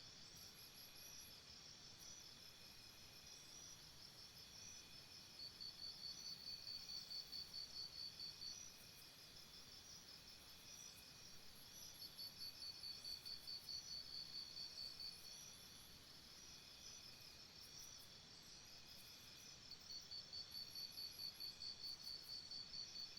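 Faint jungle insect chorus: a high, rapidly pulsed chirping that comes in three bouts of about three seconds each, over a steady bed of higher, thinner trilling.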